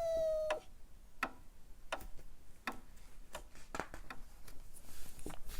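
A held tone that cuts off about half a second in, then faint, sharp ticking clicks about every 0.7 s: an added sound effect.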